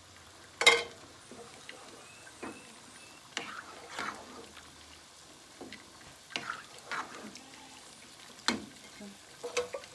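Wooden spoon stirring cooked beans in their broth in a pot: wet sloshing and scraping, with one sharp knock of the spoon against the pot about a second in and a few softer knocks and scrapes after it.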